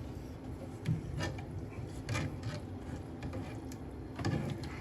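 A few light taps and rubbing sounds of food being handled and seasoned, over a low steady hum.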